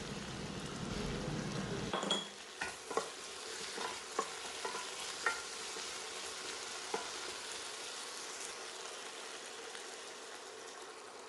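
Potato, carrot and drumstick pieces frying in oil in a pan: a steady sizzle while they are stirred, with a few light clicks of the spoon against the pan between about two and seven seconds.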